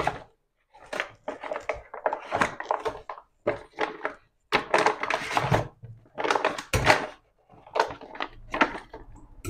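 Squid and leftover water tipped from a plastic bag into a colander in the kitchen sink: irregular splashing, sloshing and rustling in short bursts, loudest about halfway through.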